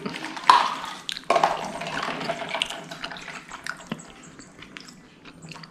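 Juice being poured from a plastic pitcher into a plastic cup: two pours about a second apart, each trailing off, then a light knock about four seconds in.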